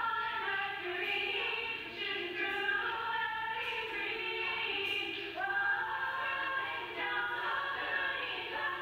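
A group of voices singing a song together, heard muffled with the top end cut off, as played back from an old VHS tape and re-recorded on a phone.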